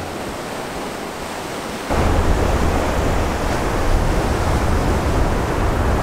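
Surf breaking and washing up the beach as a steady rush of noise. It gets louder and heavier about two seconds in.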